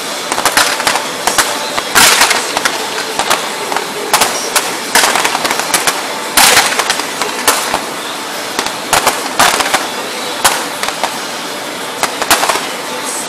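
Fireworks going off: an irregular run of sharp bangs and crackling pops, a dozen or more loud reports with smaller ones between.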